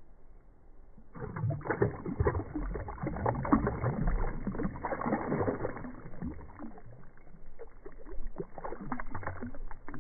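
Slowed-down, deep and muffled water splashing and sloshing as a bass is released into the water beside a kayak, starting about a second in and loudest over the next few seconds.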